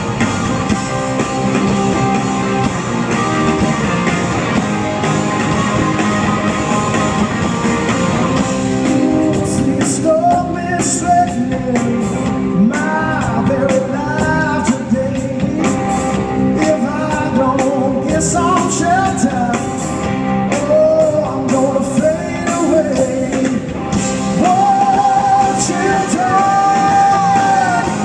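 Live rock band playing in an arena, heard from the crowd: electric guitars and drums, with singing that comes in about ten seconds in and a long held note near the end.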